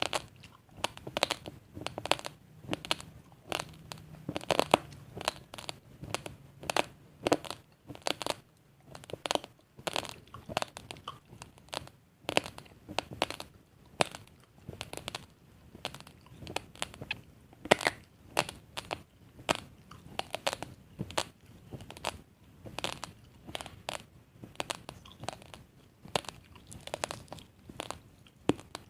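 Raw basmati rice grains being chewed close to the microphone: a steady run of sharp crunches, about two a second.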